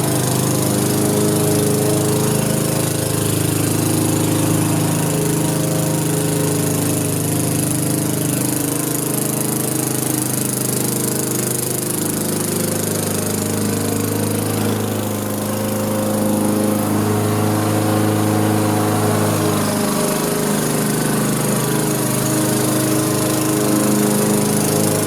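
Lawnmower running steadily while cutting long grass, its pitch and loudness dipping briefly about halfway through as it bogs under the load.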